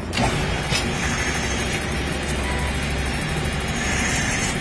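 Automatic CNC lathe running steadily while machining brass parts, a continuous mechanical hum and hiss, with a light knock just after the start.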